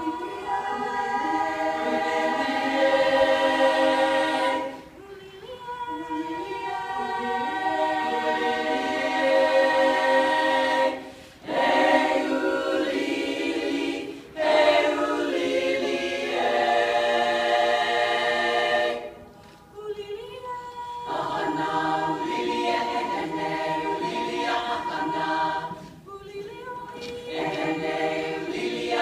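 Women's a cappella chorus singing in harmony, holding sustained chords in phrases separated by brief breaks.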